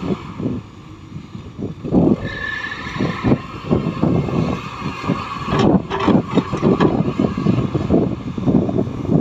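Heavy earthmoving machinery working, its engine rumble under a dense run of irregular knocks and clatter, with a brief high squeal a couple of seconds in.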